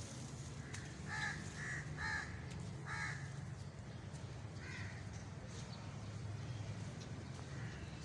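House crows cawing: about five short caws in the first five seconds, then a pause, over a low steady background hum.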